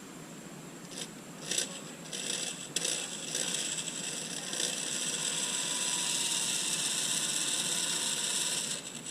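Tool driving in screws to fit a latch handle, with a ratcheting, clicking mechanism: a few short bursts, then a steady run of about six seconds that stops suddenly near the end.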